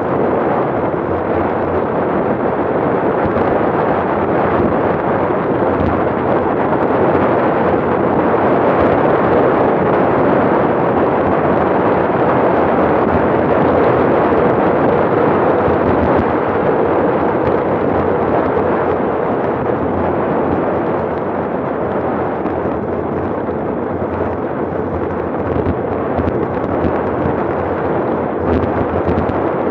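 Wind buffeting a handlebar-mounted camera's microphone on a fast road-bike descent at around 40 mph: a loud, steady rush of noise that eases slightly in the second half as the speed drops to about 30 mph.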